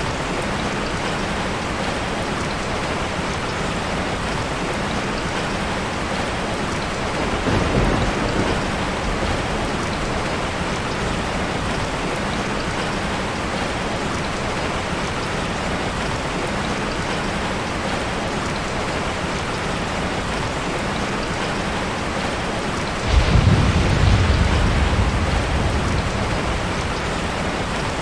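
Steady rain with thunder: a short low rumble about eight seconds in, then a louder roll that breaks in suddenly about twenty-three seconds in and rumbles away over several seconds.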